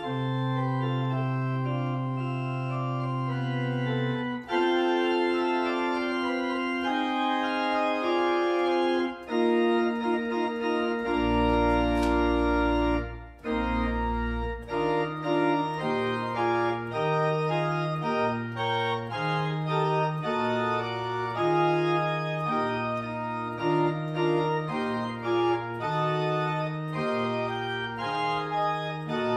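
Church organ playing: full sustained chords at first, then a deep held pedal note about halfway through, after which the bass steps back and forth between two notes roughly once a second under moving upper parts.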